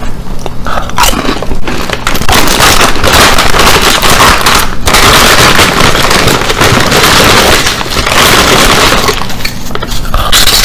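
Ruffles potato chip bag crinkling loudly right at the microphone for several seconds, a dense crackle with a brief break in the middle. There are shorter crunches before and after it, and a bite into a chip near the end.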